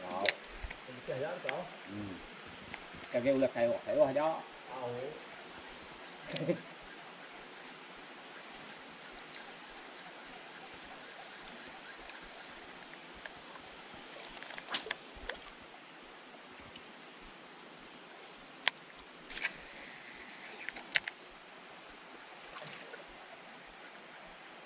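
Steady, high-pitched chorus of forest insects, with a few sharp knocks around the middle.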